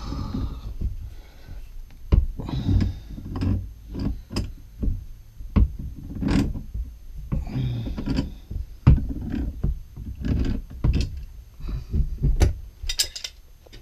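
Irregular knocks, clanks and scrapes of hand tools and metal plumbing fittings being handled while washing machine valves are worked on.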